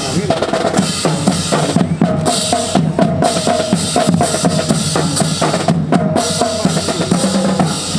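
Marching drums playing a steady, rhythmic cadence of snare and bass drum strokes to accompany a rifle drill routine.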